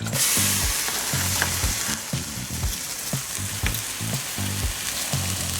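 Loud hissing sizzle of washed wet rice going into a hot pot of water, starting suddenly and slowly easing off.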